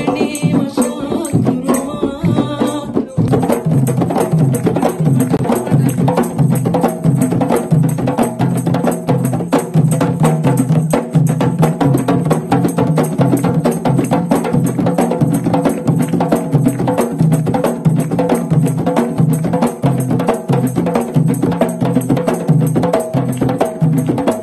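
A troupe of barrel drums beaten by hand, playing a fast, steady, driving rhythm with no break.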